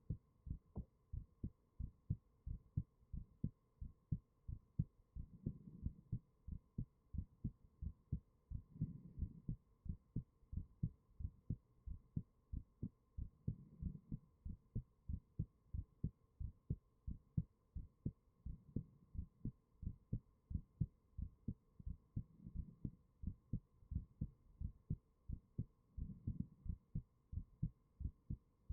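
A person's heartbeat, close up, beating in a steady, even rhythm of low thumps under a faint steady hum.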